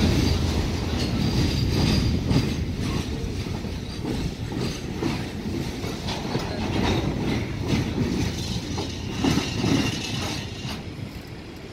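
Empty BOBRYN open hopper wagons of a freight train rolling past, a low rumble with the wheels clattering over the rails. The sound fades near the end as the last wagon moves away.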